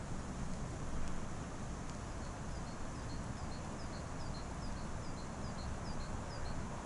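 A small bird calling repeatedly in short, high, falling notes, about three a second, over a steady low rumble of wind.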